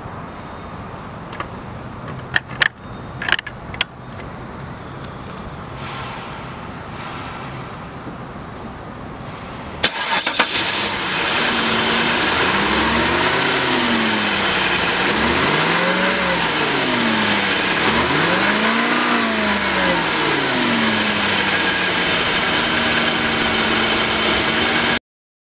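Cadillac Northstar 4.6-litre 32-valve V8 of a 2001 DeVille starting about ten seconds in, then revved three times, rising and falling in pitch, before settling to a steady idle and cutting off suddenly near the end. A few sharp clicks come before the start.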